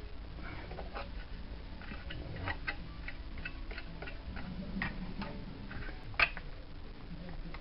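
Scattered light clicks and knocks of metal parts and tools being handled while a Kirby vacuum cleaner's aluminium motor housing and fan are reassembled, with one sharper knock about six seconds in.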